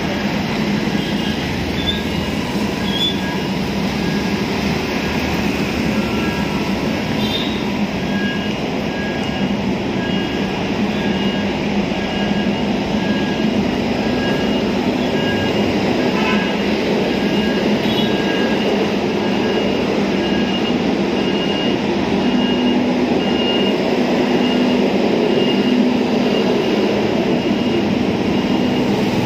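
Steady, loud heavy-engine and road-traffic noise with a low hum. A light, evenly spaced beeping repeats through the middle stretch.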